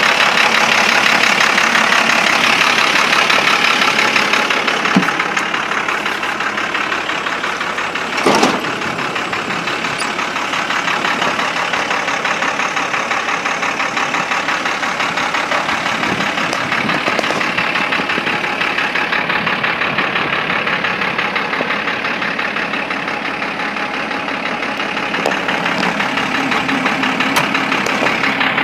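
1992 Ford F700 box truck's diesel engine idling steadily, with one brief thump about eight seconds in.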